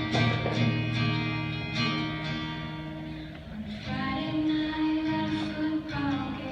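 Acoustic guitar strumming chords, with a girl's voice singing along from about four seconds in.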